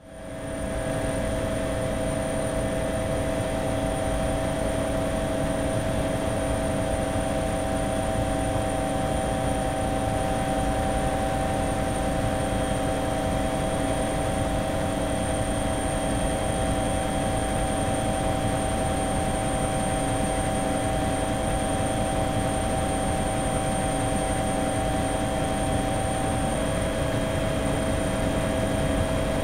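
Steady drone of an aircraft's engines heard from on board, with a low rumble and several constant whining tones. One of the tones drops out near the end.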